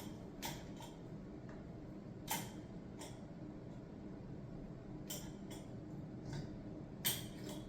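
A few scattered light clicks and clinks of small parts from a Moen faucet trim kit being handled, the sharpest about two seconds in and another near the end.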